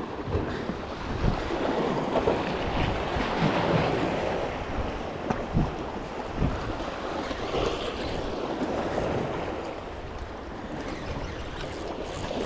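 Small waves washing and breaking against jetty rocks, with wind buffeting the microphone in low thumps.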